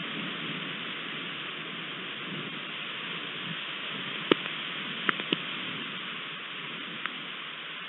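Steady rain falling in a thunderstorm, with a few sharp taps of drops about halfway through and again near the end.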